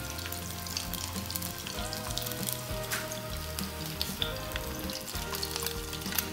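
Cooking oil sizzling and crackling in a nonstick frying pan, with green bell pepper rings frying in it.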